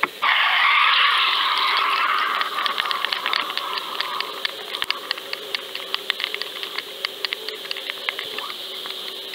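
Underwater rush of water flowing past a GoFish Cam camera housing as it sinks on a fishing line, starting suddenly just after it goes under and fading gradually. Scattered sharp clicks and a faint steady hum run beneath it.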